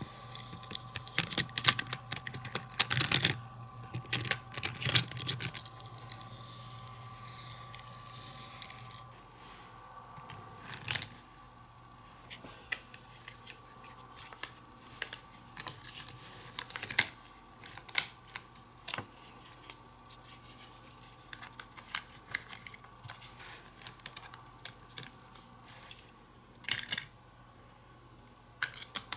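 Plastic toy playset pieces being handled, with a quick run of clicks and knocks in the first few seconds, then scattered single clicks.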